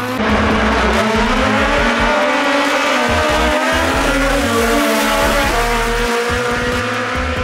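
Drag-racing cars accelerating hard down the strip, their engines revving loud, the pitch climbing and dropping several times as they run through the gears.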